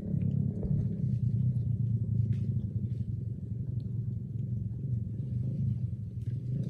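Steady low engine rumble, like a motor running at idle, with a few faint scattered clicks.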